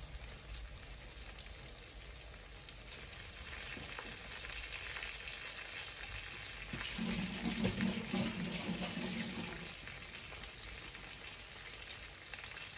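Whitebait fish frying in a pan of hot oil: a steady crackling sizzle that grows busier about four seconds in and eases off near the end.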